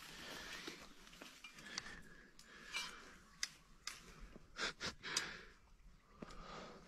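Quiet breathing close to the microphone, with a few short rustles and scuffs scattered through it.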